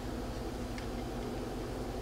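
Steady low background hum, with a faint tick about a second in from small iPod parts being handled.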